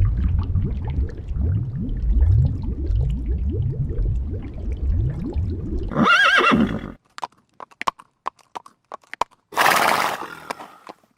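A horse: about six seconds of low, rapid rumbling, then a loud high whinny with a wavering pitch, followed by scattered sharp clicks and a short noisy burst near the end.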